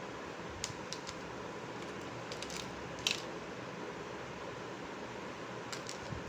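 Light clicks and taps of small plastic toy pieces being handled, a handful of separate clicks with the loudest about three seconds in, over a steady hiss.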